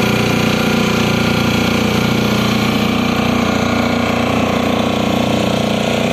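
A small motorboat's engine running steadily, with no change in pitch, while the boat is under way through the water.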